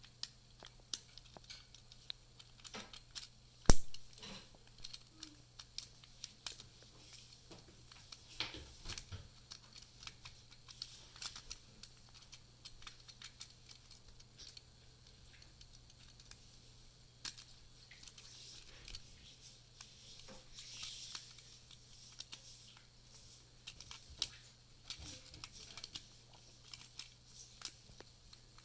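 Lock picking a residential door-handle lock: scattered small metallic clicks and scrapes of the pick and tension wrench working the pins, with one sharp, much louder click about four seconds in. A faint steady low hum runs underneath.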